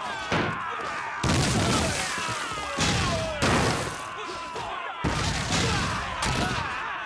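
Staged battle sound: a crowd of soldiers shouting and yelling, broken by several loud explosions with crashing debris. The explosions are the loudest sounds.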